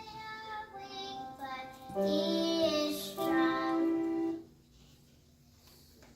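Music with a high voice singing long, held notes that step in pitch, breaking off about four and a half seconds in.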